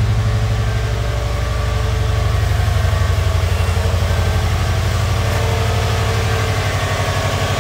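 Subaru twin-turbocharged flat-four engine idling steadily, warming up after its first start in years, with a smooth, even burble and no nasty engine noises.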